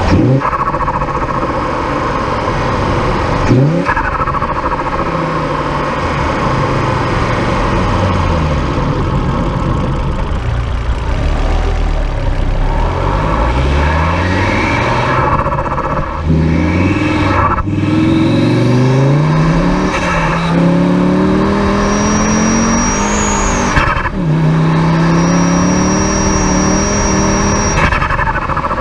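Intake and turbo sound of a tuned 300 hp Volvo S60 2.3 T5's turbocharged inline-five under hard acceleration. The engine note climbs through the gears and drops sharply at each shift, a few times. In the later pulls a high turbo whistle rises and holds, with turbo flutter on lift-off at the shifts.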